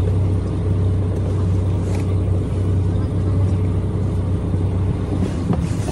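Car engine running steadily, heard from inside the cabin as a low hum with a faint steady higher tone above it.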